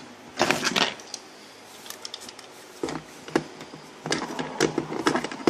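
Handling noise of tongue-and-groove (channel-lock) pliers being brought to and set on a brass water-supply fitting: a short rustle about half a second in, then scattered sharp clicks and metal knocks, coming thicker near the end.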